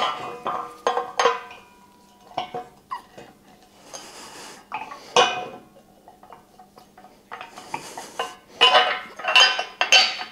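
Steel shop-crane parts and hardware clinking and knocking together as the crane is bolted together by hand: a string of separate metal clinks, some ringing briefly.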